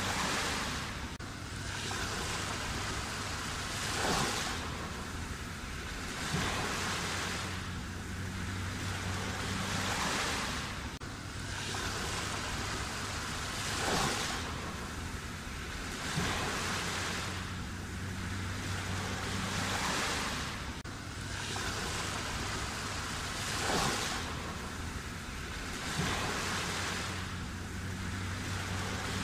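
Sea waves breaking and washing in, the surf swelling about every two seconds with a bigger break every ten seconds or so. A faint low hum comes and goes underneath.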